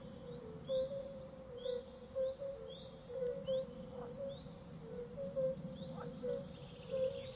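Birds calling in a steady, repeating pattern: a short high chirp about once a second over a lower repeated note, with a low background hum of outdoor noise.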